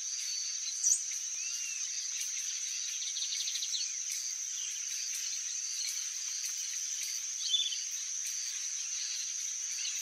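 Outdoor countryside ambience: a steady, high-pitched insect drone with scattered small-bird calls over it, including a sharp rising chirp about a second in, a quick trill around three seconds in, and a short call about seven and a half seconds in.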